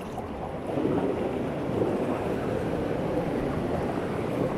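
River water rushing steadily, an even noise with no separate events.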